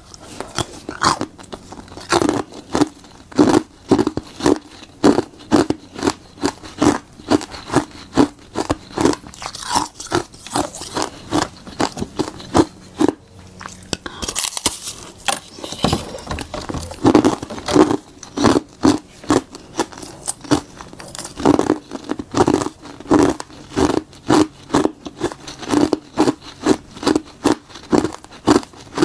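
Ice made from frozen tartary buckwheat tea being bitten and chewed close to the microphone: a long run of loud, crisp, regularly spaced crunches, with a brief hissing crackle about halfway through.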